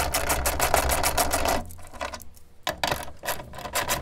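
Ratchet wrench clicking rapidly as a fender mounting bolt is backed out, in two quick runs with a short pause a little before halfway.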